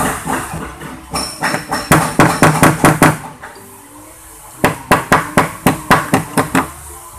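Hammer blows in two quick, even runs of about ten strikes each, roughly five a second, with a short pause between the runs.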